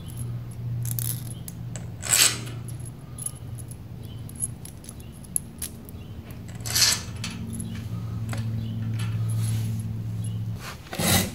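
A handful of small metal mounting screws jingling and clinking in a hand as they are picked through, with three louder rattles at about two, seven and eleven seconds in. A steady low hum runs underneath.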